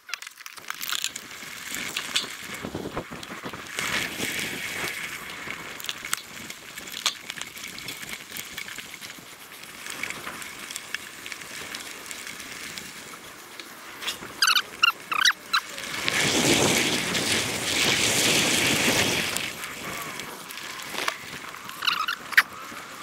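Mountain bike rolling over a dry dirt trail: continuous tyre noise with rattles, knocks and the ticking of the freewheel hub. About sixteen seconds in, a louder rush lasts some three seconds, and a few short high squeaks come about fifteen seconds in.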